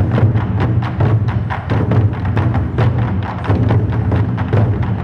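An ensemble of large red Chinese barrel drums (tanggu) beaten with sticks in a fast, driving rhythm. Deep drum strokes mix with sharp, clicking hits.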